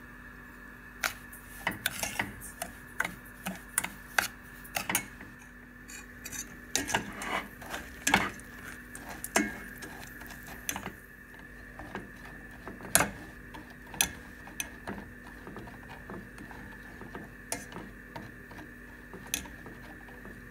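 Metal spoon stirring sugar in a stainless steel saucepan as it melts into caramel, with irregular clinks and taps of the spoon against the pot, busiest about a third of the way in. A steady faint hum underneath.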